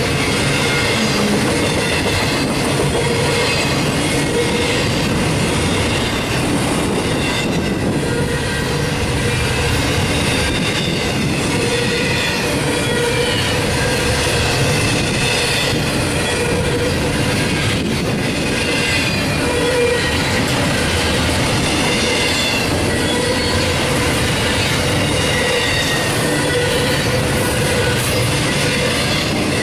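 Double-stack intermodal container cars rolling past on steel wheels: a steady loud rumble of wheels on rail, with high ringing tones from the wheels held over it.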